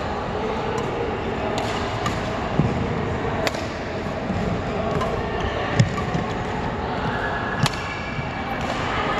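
Badminton rally: sharp racket strikes on the shuttlecock every second or so, mixed with thuds of players' feet on the court, the loudest hit about six seconds in, over a steady hall background noise.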